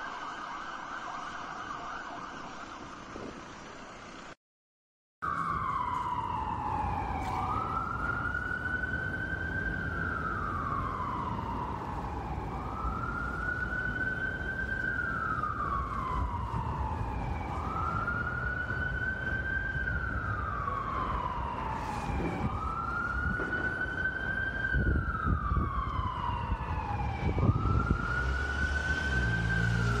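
An ambulance siren holds a steady tone and fades out, then cuts off. About a second later an ambulance wail siren starts: a quick rise in pitch, a short hold, then a slow fall, repeating about every four to five seconds over a low rumble of traffic.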